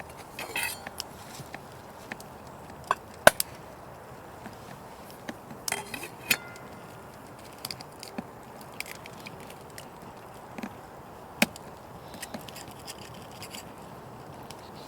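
Scattered sharp knocks and clicks of objects being handled, the loudest about three seconds in and another near eleven seconds, with a short ringing clink about six seconds in.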